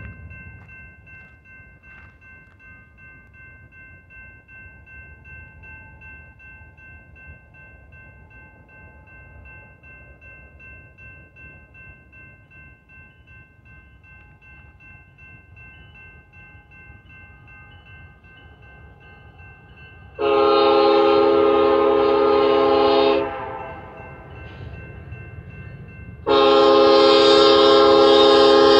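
Low, faint rumble of an approaching Union Pacific freight train, then its lead locomotive's air horn sounds two long chord blasts, each about three seconds long, about three seconds apart, the opening of the long-long-short-long warning for the grade crossing ahead.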